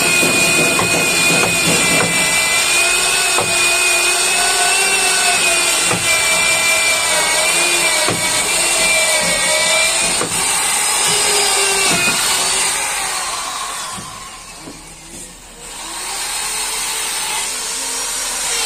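Handheld electric drill boring into a wooden post, its motor whine wavering in pitch as the bit bites into the wood. It winds down and stops about two-thirds of the way through, then starts running again near the end.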